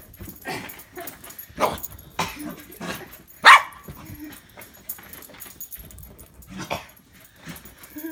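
Bernedoodle barking in play: about four single barks spaced one to three seconds apart, the loudest about three and a half seconds in.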